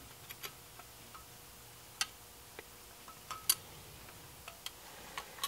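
Faint, irregular small metal clicks and ticks, about ten of them, from an HID headlight projector and its bracket being handled while stainless steel machine screws and nuts are fitted by hand. The sharpest clicks come about two seconds and three and a half seconds in.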